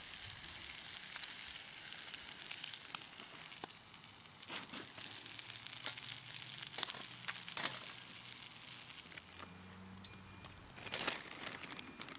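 Slice of Spam sizzling in a cast iron skillet over a wood-burning Solo Stove: a steady frying hiss with small scattered crackles. A few louder rustling, crunching noises come near the end.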